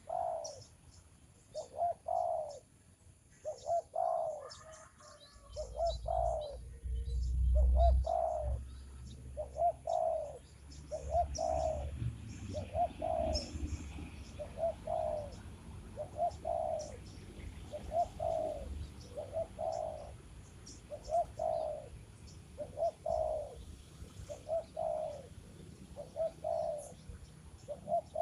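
A dove cooing: a short, low, bent note repeated steadily about once a second. Faint chirps of small birds sound behind it, and a low rumble comes in for several seconds in the first half.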